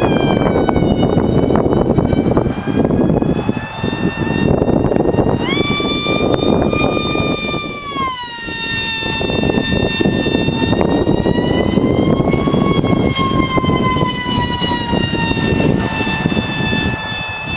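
High-pitched motor whine of a 36-inch radio-controlled model running at speed over a steady rushing noise. It climbs in pitch about five seconds in, drops back about three seconds later, then swells again and slowly falls away.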